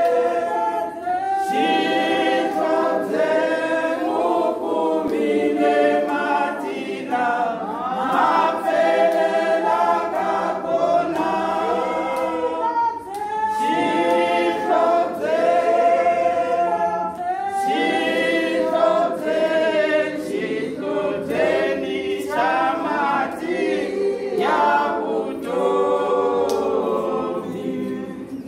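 Women's choir singing together a cappella, in sung phrases of a few seconds each with brief breaks between them.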